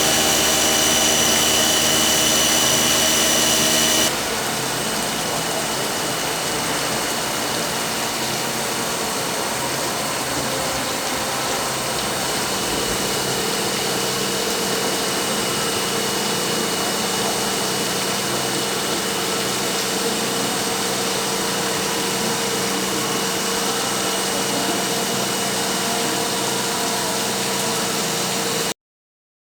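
CNC working center running, a steady machine noise with several high whining tones. The sound changes abruptly and gets quieter about four seconds in, then cuts off suddenly near the end.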